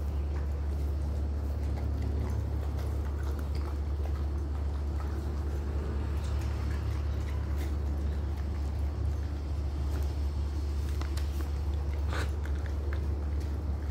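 A steady low hum throughout, with faint rustling and scattered small clicks from dogs' fur brushing against the phone's microphone at close range; one sharper click comes about twelve seconds in.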